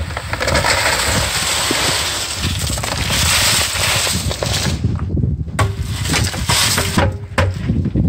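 Wet, gravelly concrete pouring out of the tipped drum of an old concrete mixer into a tub, a continuous gritty rush. About five seconds in it breaks up into scattered knocks and clumps dropping as the last of the batch comes out.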